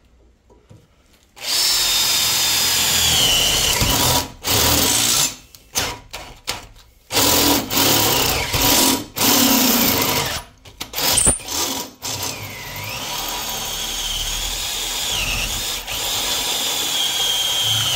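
Cordless drill turning a step drill bit through a square steel tube, starting about a second and a half in, stopping and restarting several times, its high motor whine dipping and rising in pitch under the load. The drill is labouring: it is too small for the step bit.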